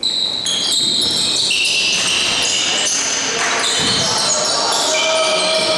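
Sounds of an indoor basketball game: many overlapping high squeaks of sneakers on the gym floor, with ball bounces and players' voices.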